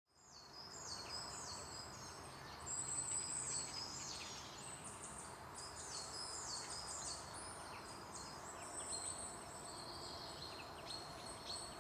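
Birdsong ambience: many small birds chirping in quick, high, repeated calls over a steady soft background hiss, fading in from silence at the start.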